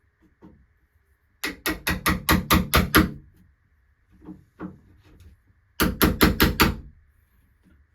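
Wood chisel driven with quick hammer blows into a door jamb, cutting the mortise for a door-latch strike plate. A fast run of about eight sharp strikes, a few lighter taps, then a second run of about five.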